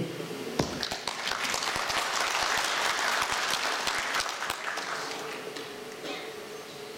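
Audience applause that builds about half a second in and dies away over the last couple of seconds.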